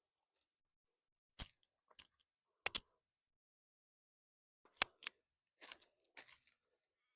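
Rocks being handled and packed around a pot in a garden bed: a few sharp clacks, one of them doubled, then two short gritty crunches.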